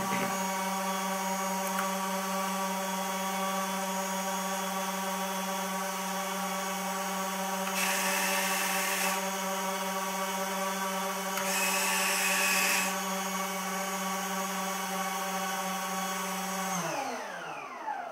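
Twin electric ducted fans of an RC Cessna Citation jet model running with a steady, many-toned whine, then spooling down with falling pitch near the end. Two brief servo whirs are heard midway, about three seconds apart, as the model's retractable landing gear is cycled.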